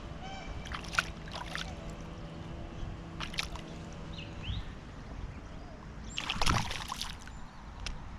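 Water sloshing and splashing as a caught estuary perch is put back into the river, in short splashes with a bigger, longer splash about six and a half seconds in.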